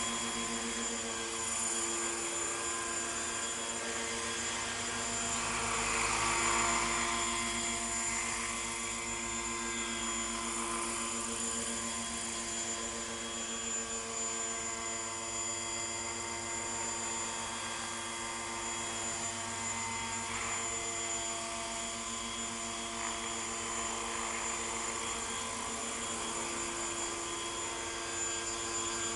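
Hurricane 550 radio-controlled model helicopter running steadily in flight: the rotor's hum under a thin, high, steady whine from the drive. It grows briefly louder about six seconds in.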